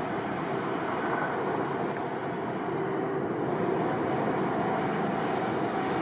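Jet airliner engines making a steady rushing noise, with a faint tone rising in and out around the middle.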